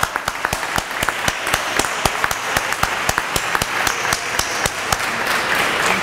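Audience applauding: a run of sharp, distinct hand claps that thickens into steadier applause in the second half.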